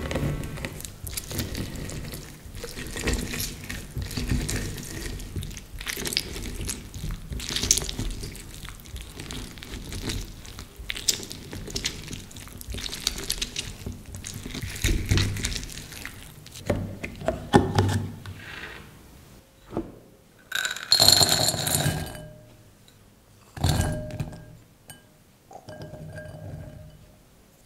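Orange halves pressed and twisted on a plastic citrus reamer over a glass jar: wet squishing and rubbing with juice dripping, through most of the first two-thirds. Near the end come three short pours, the last of them candied tutti-frutti tipped from a small container into a glass bowl.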